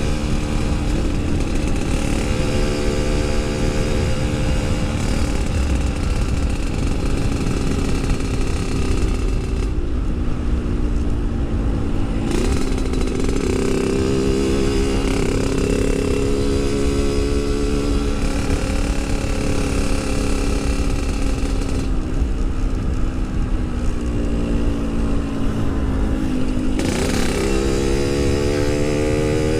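Yamaha RX-King 135cc single-cylinder two-stroke engine running on the move, its pitch dropping twice as the throttle eases and rising again as it reopens, with low wind rumble on the microphone. The rider thinks something on the bike needs checking from the way it sounds.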